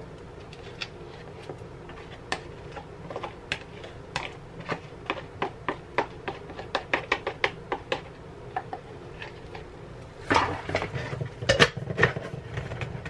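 Light, irregular clinks and taps of kitchenware as batter is poured from a mixing bowl into a clear plastic batter dispenser. About ten seconds in comes a louder cluster of knocks and clatter as the dispenser's plastic lid is put on.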